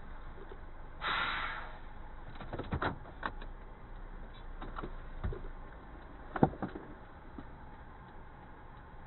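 A short hiss about a second in, then scattered sharp clicks and knocks inside a stopped car's cabin, over a low steady hum. The loudest knock comes about six and a half seconds in.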